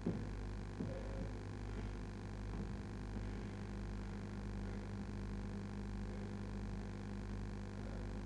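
Steady low electrical hum over faint room tone, with a couple of faint soft knocks in the first second.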